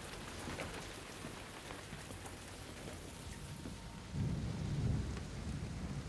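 Steady rain with scattered pattering drops. About four seconds in, a low roll of thunder comes in and is the loudest sound.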